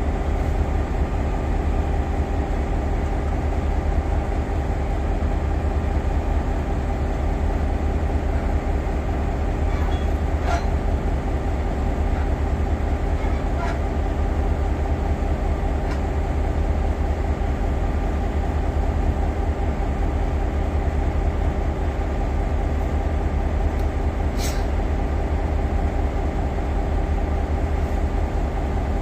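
South African Railways class 5E1 electric locomotive standing with its blowers running: a steady, even hum with a few faint clicks or knocks along the way.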